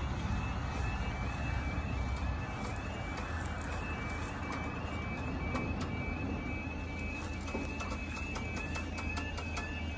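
Level crossing warning alarm sounding a rapid series of high two-tone beeps while the barriers lower, with a lower tone joining near the end. A low road-vehicle rumble runs underneath.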